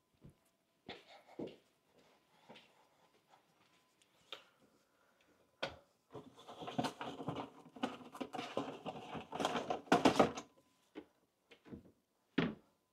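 Household objects being handled: scattered clicks and knocks, then about four seconds of rustling and clatter, loudest around ten seconds in.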